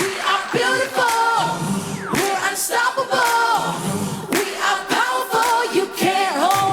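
Music with several singing voices in harmony, holding and sliding notes without clear words, over sharp percussive hits.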